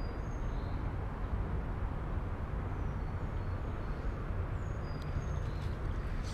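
Steady low outdoor rumble with small birds chirping over it: short, high calls every second or so, some sliding in pitch.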